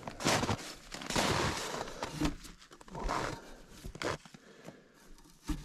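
Irregular crunches and scrapes: footsteps in cold, crusty snow and hands handling the frost-covered snowmobile, in about half a dozen short bursts.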